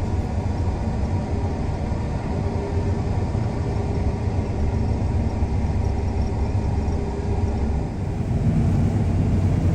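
Combine harvester running steadily under load, a heavy low rumble with a steady hum, growing slightly louder about eight seconds in.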